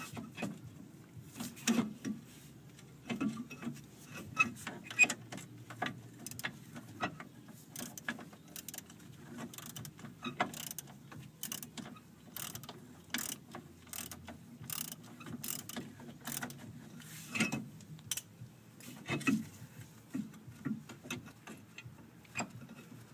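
Hand socket ratchet clicking in short irregular runs with scattered sharper metal clicks, as a rusty screw is worked loose overhead.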